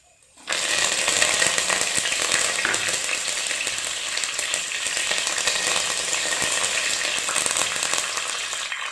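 Hot groundnut oil sizzling steadily in a kadai, with fenugreek seeds and dried red chillies frying in it. The sizzle starts suddenly about half a second in.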